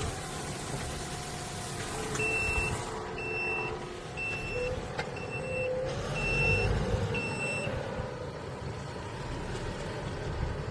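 Farm tractor engine running, with six short high electronic beeps of one pitch, about one a second, like a reversing alarm.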